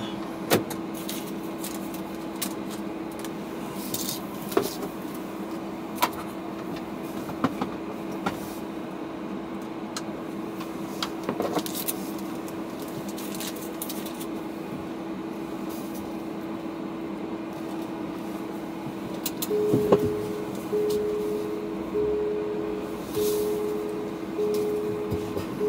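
Steady hum inside a parked car's cabin, with a few small clicks and knocks scattered through it. About 19 seconds in, an electronic chime starts repeating, one beep a little over every second.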